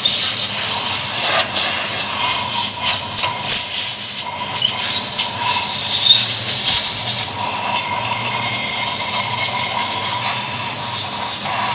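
Compressed-air blow gun hissing against a freshly wet-blasted aluminium scooter crankcase, blowing the water off to dry it. The air comes in uneven spurts for the first few seconds, then holds steadier.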